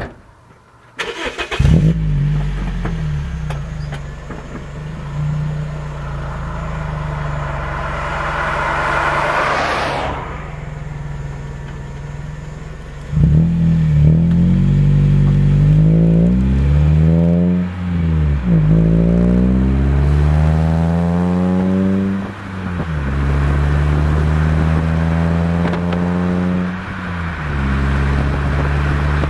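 Toyota Echo's 1.5-litre four-cylinder heard through a Scion xA TRD axle-back muffler: the engine starts about a second in with a brief flare, then idles steadily. From about halfway it is revved several times, each rev rising and falling, before it drops back to idle near the end.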